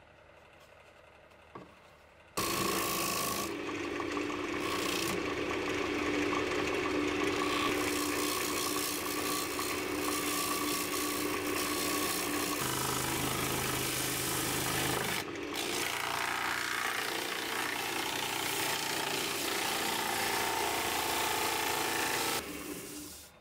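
Sandpaper held against a cherry bowl spinning on a wood lathe: a steady rasping hiss with the lathe's steady tone under it. It starts suddenly a couple of seconds in, dips briefly around the middle and fades out near the end.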